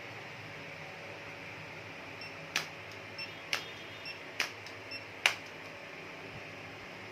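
A run of seven sharp, short strikes lasting about three seconds, starting a little over two seconds in: four louder ones about a second apart, with fainter ones between. Under them is a steady low hiss.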